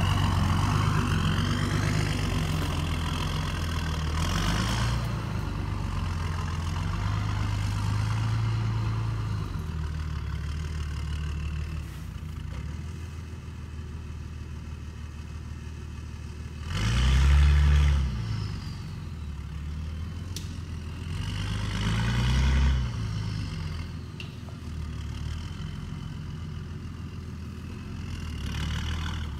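Four-wheel-drive ute's engine labouring up a steep rutted dirt track, steady at low revs with two short blips of throttle, the revs rising and falling, a little past halfway and again a few seconds later.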